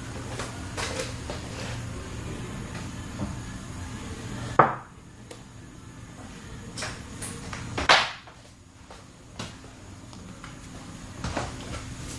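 Two sharp cracks about three seconds apart during a chiropractic adjustment, the first the louder, over a steady low hum.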